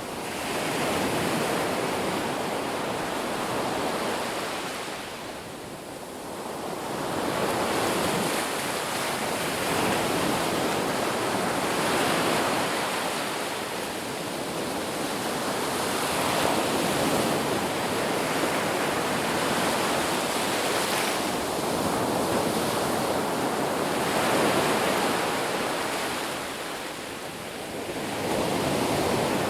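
Ocean waves breaking and washing on a beach, a steady surf that swells and eases every few seconds.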